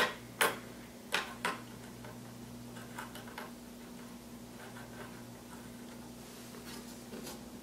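Light clicks and taps of a small plastic stepper motor being fitted onto an instrument-cluster circuit board, its pins pushed into their holes: a few sharp clicks in the first second and a half, then fainter ticks now and then. A steady low hum runs underneath.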